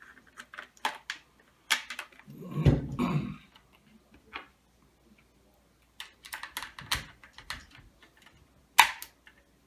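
Metal parts of a Browning A-5 shotgun clicking and scraping as the bolt assembly is fitted back into the receiver: a run of light irregular clicks, with a sharper, louder click near the end.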